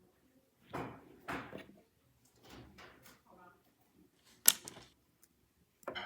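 Small plastic Nanoblock pieces being handled, with short rustles and soft clicks and one sharp click about four and a half seconds in.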